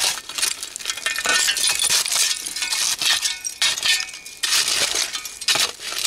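Metal spade scraping and digging through dirt full of buried glass, with repeated clinks and a brief ringing chink as the blade strikes bottle glass.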